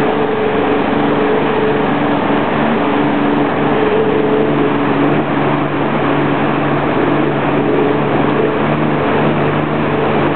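Jet ski engine running steadily under way, a held hum with a dense rushing noise over it.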